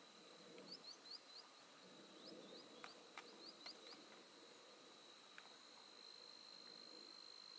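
Faint insect trill, one steady high tone held throughout. Over it come two runs of short rising chirps, about a second in and again between two and four seconds, and a few sharp clicks.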